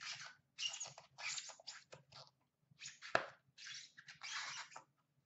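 Short rustles and scrapes of cardboard packaging as an Upper Deck The Cup hockey card box is opened and its black inner box lid is lifted off, with one sharp click a little after three seconds.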